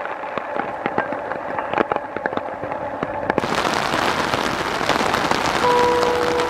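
Heavy rain: a crackling patter of drops, then, after an abrupt change about three seconds in, a louder, even downpour hiss. Near the end an approaching train's horn sounds a steady tone through the rain.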